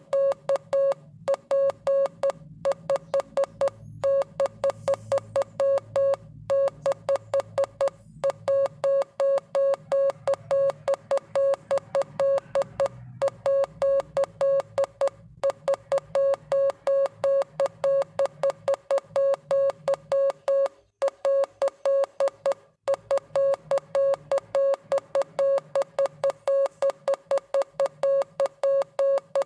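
Morse code played as a single mid-pitched electronic beep keyed on and off in rapid dots and dashes, several beeps a second, broken by short pauses between letter and word groups.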